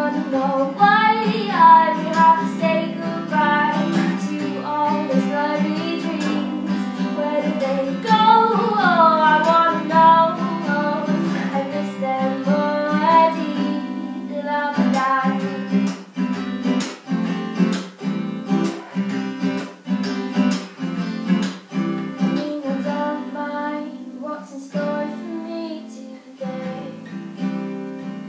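A woman singing while strumming an acoustic guitar. About halfway through the singing drops away and the guitar strums on alone in a steady rhythm.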